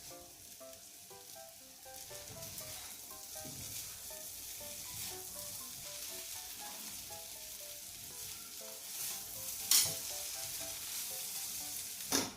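Kimchi fried rice sizzling in a hot pan while being stirred, with two sharp strokes from the utensil striking the pan, about ten seconds in and again near the end.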